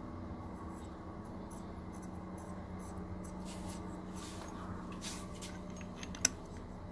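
Faint scratchy handling noises as threaded black adapters are turned by hand into the spark plug holes of a BMW N62 cylinder head, over a steady low hum. A single sharp click about six seconds in.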